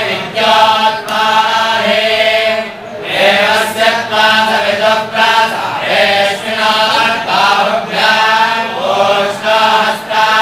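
A group of men chanting in unison, in sustained phrases of a second or two broken by short pauses for breath.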